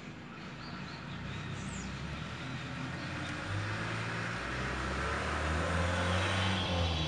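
Electric potter's wheel running with clay being centred on it: a low motor hum that grows louder and shifts in pitch over several seconds, with a rising hiss toward the end.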